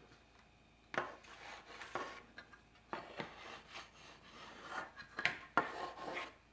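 Fondant smoother rubbing along the knife-cut edge of a rolled fondant circle, a series of soft, irregular strokes beginning about a second in, smoothing the rough cut.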